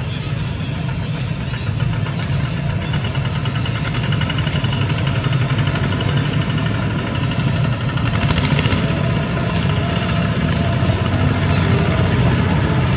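A motor vehicle engine running steadily, a constant low rumble, with several short high chirps over it.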